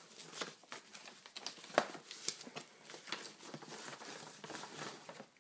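Paper and cardboard packaging rustling and crinkling as a gift box is opened and its paper-wrapped contents handled, with many small scratchy rustles and one sharper click a little under two seconds in.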